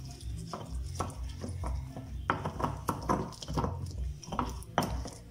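Volcanic-stone molcajete and pestle crushing and grinding roasted tomatoes, serrano chiles, garlic and onion into salsa: stone knocking and scraping against the bowl through the wet, juicy mash, in irregular strokes about two to three a second.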